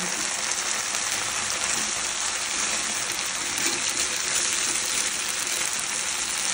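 Thin chicken slices sizzling in a nonstick frying pan in a shallow, bubbling creamy sauce: a steady crackling hiss.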